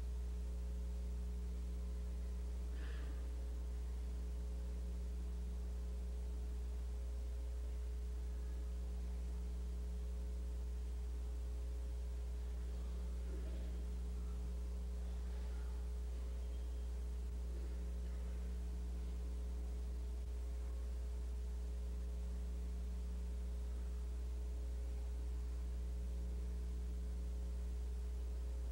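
Steady low electrical hum with a fainter buzz of higher tones above it, and a few faint small sounds about 3 seconds in and again around the middle.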